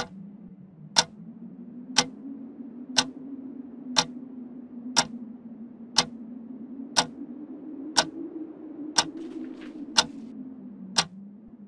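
Twin-bell alarm clock ticking, one sharp tick each second, over a low steady hum.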